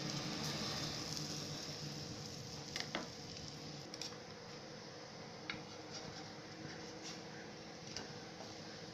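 Bread slices toasting in butter in a nonstick frying pan: a faint sizzle that is strongest in the first couple of seconds, then eases. A few light taps and scrapes of a spatula against the pan come through it.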